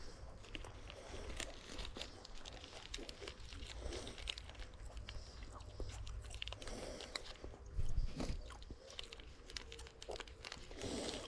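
Close-up crunching and chewing of a crumbly Nature Valley granola bar, with irregular crackles throughout. A low thump about eight seconds in is the loudest moment.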